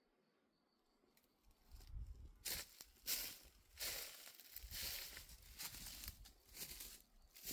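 Footsteps crunching through dry leaf litter and twigs on a forest floor, starting about two seconds in as a run of irregular crackling steps.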